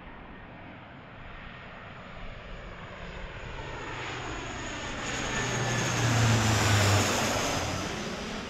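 Lockheed C-130J Hercules' four turboprop engines passing low overhead on landing approach: a low propeller drone with a high turbine whine, growing louder to a peak about six to seven seconds in, then starting to fade.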